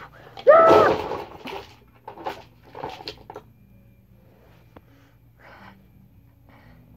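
A girl laughing: a short, high voiced note about half a second in, then breathy giggles in short puffs that grow quieter toward the end, muffled behind her hand.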